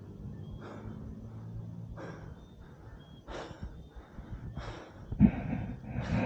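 Heavy breathing close to the microphone, about one breath a second and louder near the end: a man out of breath from climbing steep stairs.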